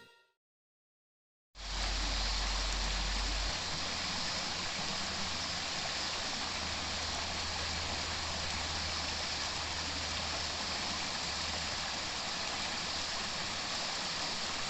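Steady rushing of a flowing stream, starting abruptly about a second and a half in after a short silence.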